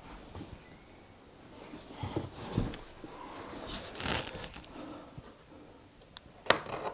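A white cardboard box being handled and set down on a table: soft scuffs and rustles of cardboard, with one sharp click near the end.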